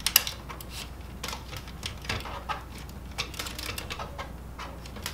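Hard plastic parts of a laser printer clicking and clattering as they are handled and fitted, a scatter of sharp irregular clicks, the loudest just after the start.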